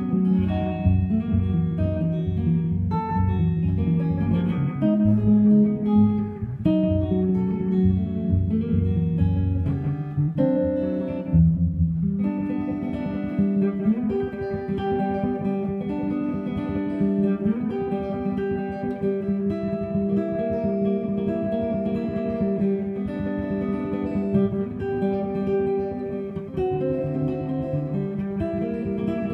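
Gretsch G6120 hollow-body electric guitar played fingerstyle in Travis picking: a steady thumbed bass pulse under a picked country melody. The playing thins out briefly about eleven seconds in, then goes on.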